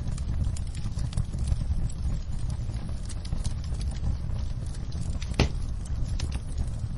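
Wood fire crackling in a fireplace, with irregular pops, the loudest about five and a half seconds in, over a steady low rumble and the patter of rain on a window.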